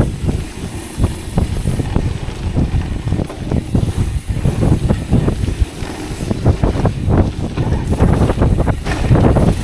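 Wind rushing over the microphone of an e-mountain bike descending a dirt trail at speed, with tyres rolling on dirt and irregular knocks and rattles from the bike over bumps.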